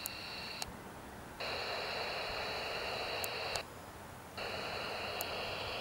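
Small hand-crank emergency radio's speaker putting out static hiss with a steady high whine, cutting out twice for under a second as the radio tunes between stations. A few faint clicks are mixed in.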